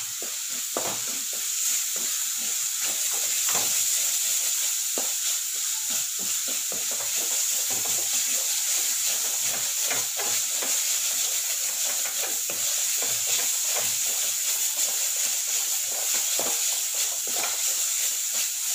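Onion-tomato masala with chilli, turmeric and coriander powders sizzling in a pan while being stirred, the spatula scraping and tapping against the pan every so often. The masala is being sautéed to cook off the raw smell of the spice powders.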